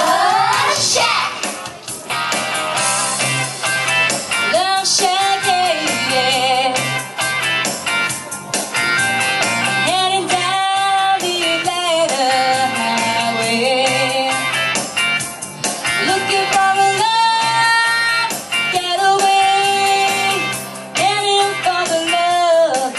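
Pop music with singing and guitar, at a steady loud level.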